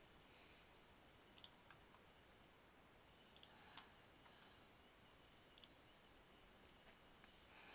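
A few faint computer mouse clicks, some in quick pairs, over near silence.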